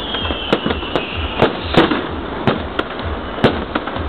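Fireworks and firecrackers going off: an irregular series of sharp bangs, about two a second, over a steady background noise. A high whistle slides down in pitch through the first second and a half.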